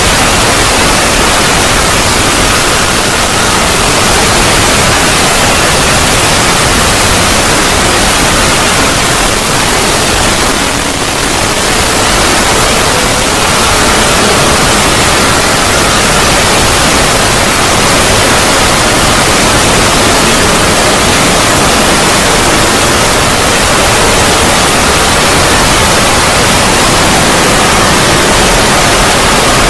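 Loud, steady static-like white noise, the long drone of a 'void' logo sound effect, with a faint steady tone running beneath it. It dips briefly about eleven seconds in.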